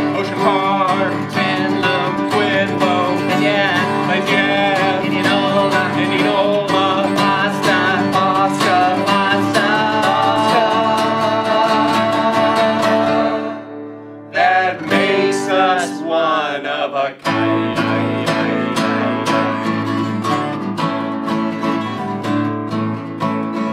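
Two acoustic guitars strummed while two men sing. The music drops away briefly about fourteen seconds in, then comes back with the guitars strumming on to the close.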